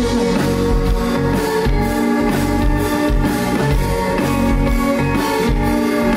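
Live rock band playing an instrumental passage: electric guitar chords over a drum kit, without vocals.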